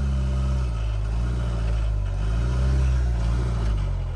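Vehicle engine running at low revs, its pitch and level swelling and easing a little, highest a little under three seconds in.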